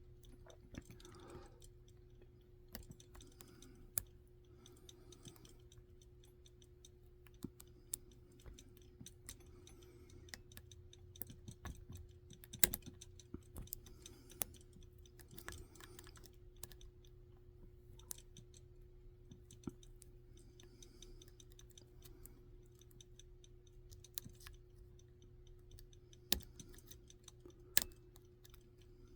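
Faint, irregular small clicks and ticks of lock picks and a tension tool working the pins of an ABUS 82/63 monoblock padlock, over a steady low hum.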